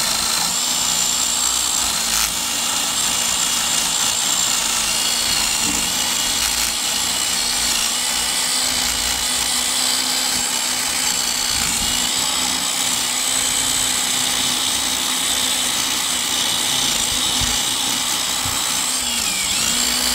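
Cordless drill spinning a wire brush against a blower motor shaft, scrubbing rust off the steel: a steady motor whine with a scratchy hiss of wire on metal, the speed dipping briefly a few times as the brush bears on the shaft.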